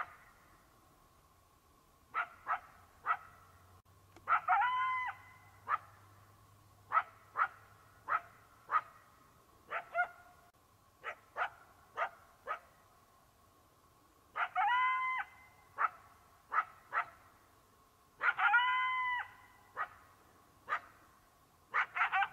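A dog barking in short, sharp, high yaps, one or two at a time. Three times it gives a longer whining yelp about a second long that rises and falls in pitch.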